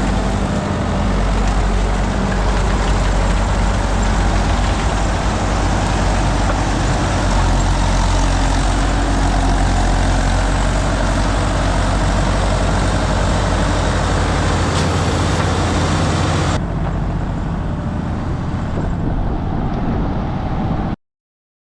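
Sawmill running steadily with loud engine and machinery noise. About three-quarters of the way through, the higher sounds drop out abruptly, and the sound cuts off to silence just before the end.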